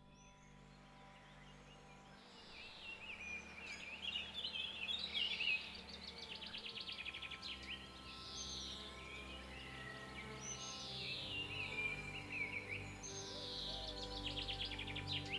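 Woodland birds singing short, repeated warbling phrases that begin about two seconds in, with a fast trill twice, over soft ambient music of held low chords.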